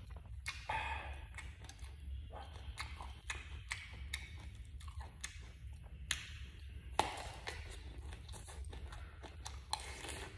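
Close-up eating sounds: a person chewing soft eggplant with wet mouth smacks and small clicks, now and then, over a steady low hum.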